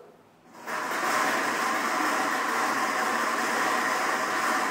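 Six lottery draw machines mixing their numbered balls: a steady, dense churning rattle that starts abruptly about half a second in.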